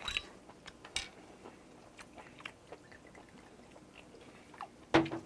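Mouth chewing sounds and small clicks as a glass soju bottle is handled, then soju poured from the bottle into a small glass near the end. A short louder sound comes about five seconds in.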